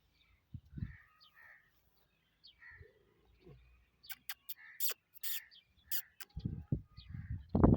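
Birds calling, with a run of sharp clicks about four to six seconds in and low thumps near the end, the loudest just before the end.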